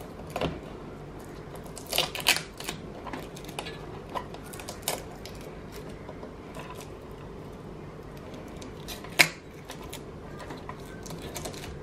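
Scattered light clicks and rustles of cables and plastic connectors being handled inside an open desktop PC case, with a cluster about two seconds in and one sharper click about nine seconds in.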